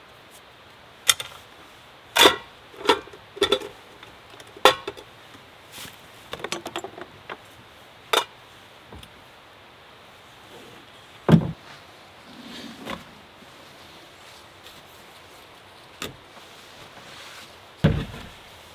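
Irregular knocks and clinks, about a dozen, spaced a second or more apart and more frequent in the first half, over a steady faint hiss.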